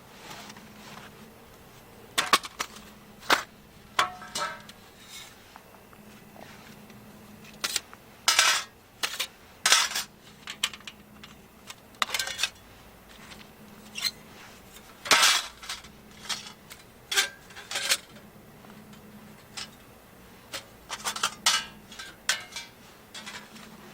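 Irregular clinks, knocks and clatters of metal camping gear, such as cookware or utensils, being handled: a dozen or so sharp sounds, some close together, over a faint steady hum.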